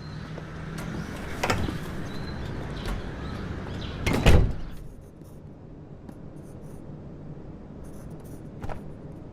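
A door being opened and shut: a few clicks and knocks, then a heavier thump about four seconds in as it closes.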